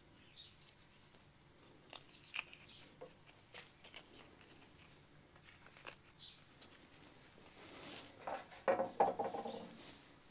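Faint, scattered clicks and taps of hand tools on metal, with a short louder clatter about nine seconds in.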